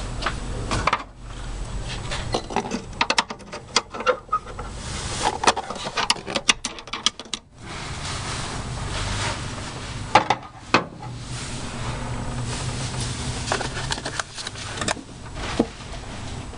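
Irregular clicks, taps and rubbing of hands working on parts in an engine bay, fitting the retaining spring on top of a PCM unit; the clicks come thickest around the middle.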